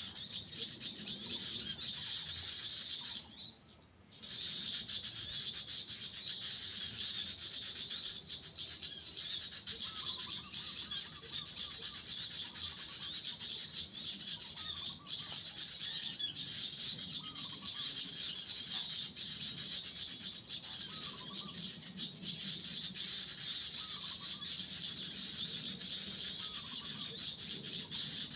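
Birds calling: a short falling high whistle repeated every second or two, with a few short lower chirps in between, over a steady high insect hiss. The sound briefly drops out a few seconds in.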